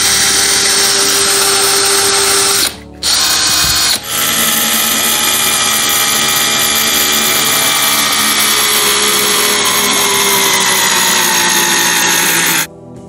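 Cordless drill-driver driving a long wood screw into timber, its motor running steadily under load. It stops briefly about three seconds in and dips again a second later, then its pitch sinks slowly as the screw goes home, and it stops shortly before the end.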